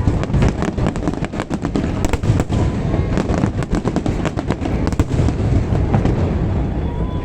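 Fireworks display: a dense, unbroken run of shell bursts, sharp bangs and crackling over a continuous low rumble.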